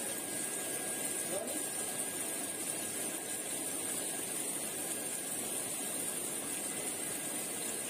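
Steady wash of noise from moving pond water, with a faint, constant high-pitched tone above it.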